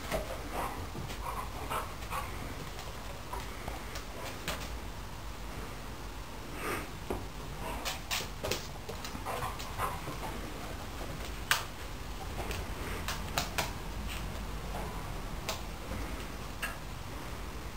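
Pit bull moving about and sniffing as it searches for its ball, with scattered sharp clicks and a few knocks; the loudest knock comes about eleven and a half seconds in.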